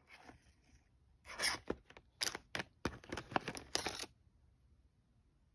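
A dental mouth mirror pulled out of a plastic packaging tray: a quick run of plastic clicks and crinkly scrapes from about a second in until about four seconds in.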